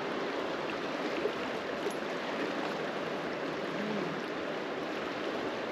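Truckee River flowing past rocks: a steady rush of moving water.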